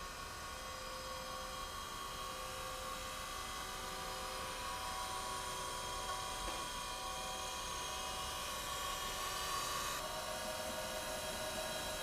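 Taft Peirce Model 200 surface grinder running, its spindle motor giving a steady whine made of several constant tones, a little louder near the end.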